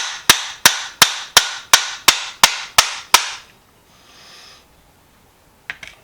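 Hammer blows on a rusted metal vise, about three a second, ten sharp strikes each with a short ring, stopping about three seconds in; the vise is being hammered to knock a seized, rusted part loose. A few faint clicks follow near the end.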